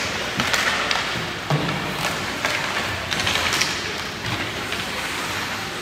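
Ice hockey play: skate blades scraping the ice in short hissing surges, with scattered sharp clacks of sticks on the puck and each other.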